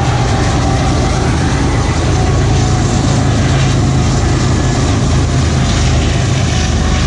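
A consist of BNSF diesel-electric freight locomotives passing close by, their engines working under load to pull the train up a grade. The sound is a loud, steady, deep drone that holds at the same level throughout.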